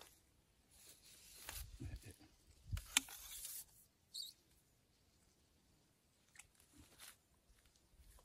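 Faint handling noises: brief rustles and scrapes with one sharp click about three seconds in, then mostly quiet with a few light ticks.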